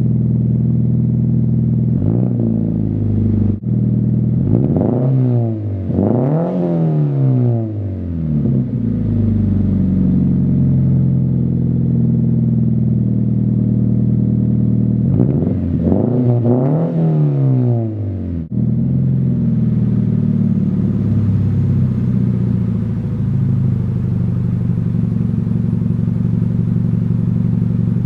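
Scion FR-S / Subaru BRZ 2.0-litre flat-four engine idling through an exhaust, revved up and let fall back several times: a short blip about two seconds in, two revs from about five to eight seconds in and two more around fifteen to eighteen seconds in, then back to a steady idle.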